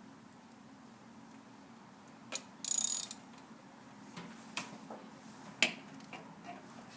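Ratchet wrench clicking as it works a spark plug socket on a 2001 Toyota Camry engine: a short, loud, fast run of clicks about a third of the way in, then scattered single clicks.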